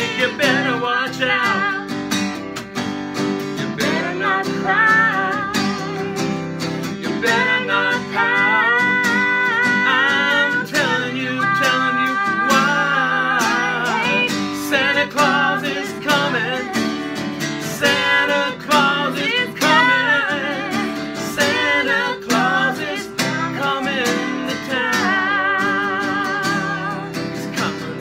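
Acoustic guitar strummed steadily while a man and a woman sing a song together, the voices held with vibrato.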